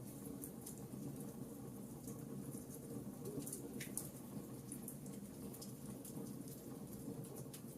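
Campfire burning with a steady low rush and scattered sharp crackles and pops of burning wood, one stronger pop about four seconds in.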